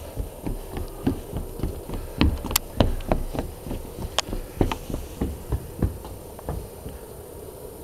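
Magnet-fishing rope being hauled in hand over hand over a wooden railing: irregular knocks and rubbing from the hands and rope against the rail, about two or three a second, dying away near the end.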